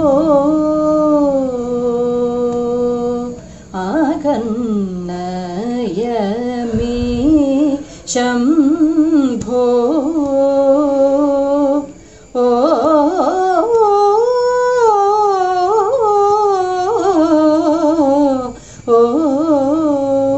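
A woman singing a Kathakali padam solo and unaccompanied, set in raga Yadukula Kambhoji: long sustained vowel notes with ornamented, wavering turns. The phrases are broken by a few short breaths.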